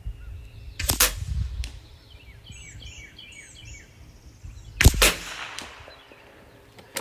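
Two rifle shots about four seconds apart, each a single sharp crack, from a CZ 455 .22 rimfire rifle and an FX Impact M3 PCP air rifle taking turns. A bird chirps a few times between the shots.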